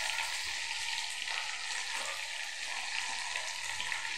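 Oil sizzling steadily in a wok as freshly added chunks of raw baby jackfruit fry with sautéed onions and tomatoes, with faint crackles.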